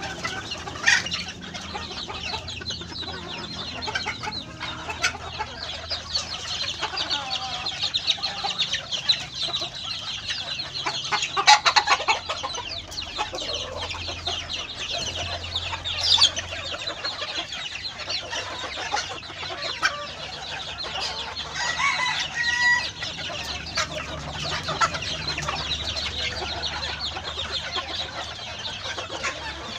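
A flock of bantam-cross hens and roosters clucking continuously as they feed, a busy overlapping chatter with a few louder calls standing out now and then.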